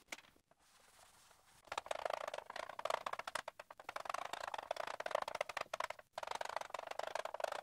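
Blackboard being wiped and then written on with chalk: a dense run of rapid, scratchy little strokes starting a little under two seconds in, with a short break about six seconds in.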